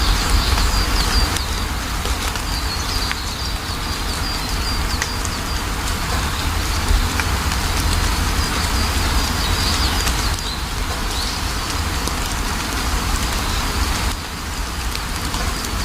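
Steady rain falling, with birds chirping on and off through it and a deep low rumble underneath.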